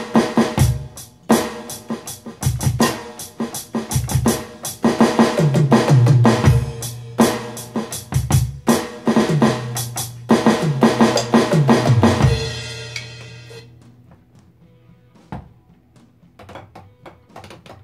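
Alesis Surge mesh electronic drum kit played through its sound module: a groove of kick, snare and cymbals with several tom fills running down in pitch, ending on a cymbal that rings out and fades about 13 seconds in. Near the end, faint clicks of sticks tapping the mesh pads, as the kit sounds with the module off.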